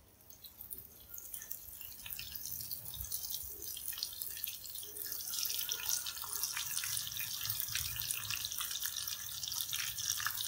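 Strips of fresh tofu sizzling and crackling in hot oil in a frying pan as they fry until crisp. The sizzle comes in about a second in and grows slightly louder.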